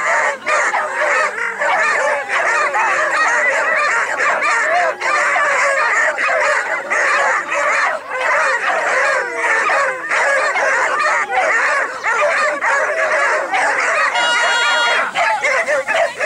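A pack of beagles bays and yelps nonstop, many voices overlapping, as the hounds give tongue while running a drag scent line. About fourteen seconds in, a short steady note sounds briefly over the pack.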